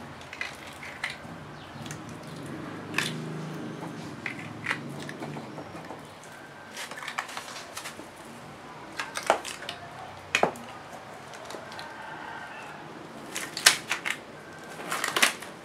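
Paintbrush dabbing and working resin into wet fiberglass cloth: soft scratchy, squishy rustling with scattered sharp clicks and taps, several of them loud.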